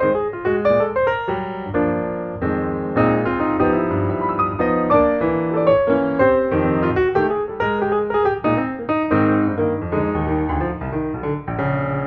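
Piano music, a continuous run of notes and chords.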